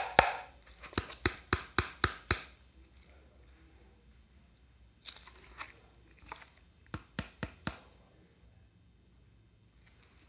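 Frozen ice cream rolls picked up off a steel cold plate into a paper cup: sharp clicks and crunches in two bursts, one at the start and one from about five to eight seconds in.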